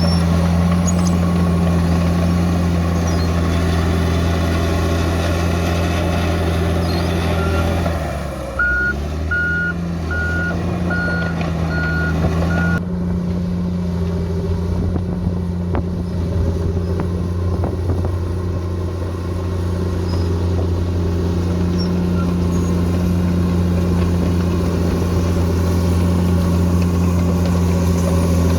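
Bulldozer's diesel engine running steadily under load, dipping briefly about a third of the way in as the machine shifts to back up. A reversing alarm then beeps about seven times in a row, roughly two beeps a second, before the engine carries on.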